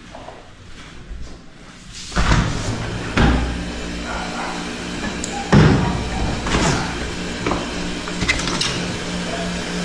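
A sliding window is pushed open about two seconds in, with a knock as it moves. The outside noise, a steady hum with scattered knocks, then comes in loud where before it was muffled behind the laminated glass.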